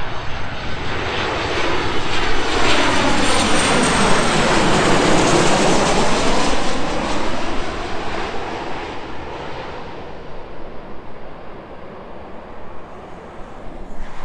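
Jet airliner on final approach passing low overhead. Its engine noise swells, peaks around five seconds in with a high whine that falls in pitch, then fades away as it passes.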